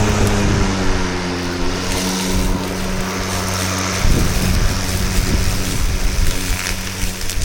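Milwaukee M18 cordless lawn mower running: its electric blade motor gives a steady hum over the rush of the spinning blade cutting long grass.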